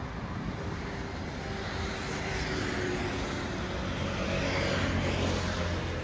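Road traffic on a busy city street, with motor vehicles running past; the traffic noise builds to a peak about four to five seconds in, as a vehicle passes close, then eases off.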